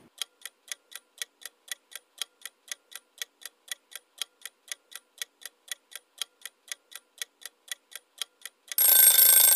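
Countdown timer sound effect: clock-like ticking, about four ticks a second. Near the end it gives way to a loud alarm ring as the timer runs out.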